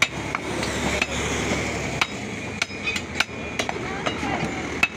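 Heavy butcher's cleaver chopping beef on a wooden stump block: about ten sharp, uneven blows of the blade through meat into the wood.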